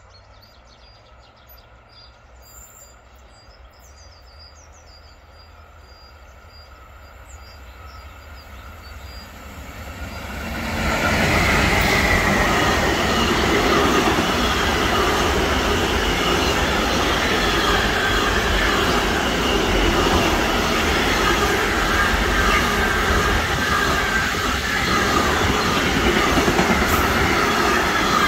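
A train on an electrified main line approaching and passing close by: faint and slowly growing for about ten seconds, then loud, with the rumble and clatter of wheels on rails and a steady high whine over it.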